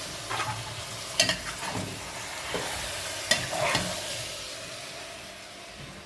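Food sizzling as it fries in a pan, with a few sharp clinks of a utensil stirring it; the sizzle eases off toward the end.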